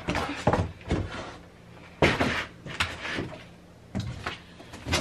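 Knocks and rustles of cardboard boxes and plastic packaging being handled and set down on a desk, a handful of separate bumps with the loudest about two seconds in.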